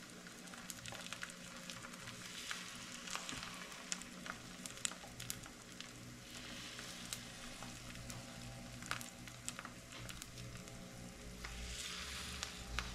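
Battered zucchini slices frying in shallow oil in a pan: a soft, steady sizzle with many small crackles and pops scattered through it. The slices have a chickpea-flour coating.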